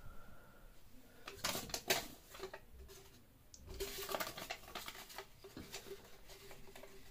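Hands handling a printed package or wrapper at a sink: crackling rustles and light clicks, in a cluster about a second and a half in and again from about four to five seconds in, over a faint steady hum.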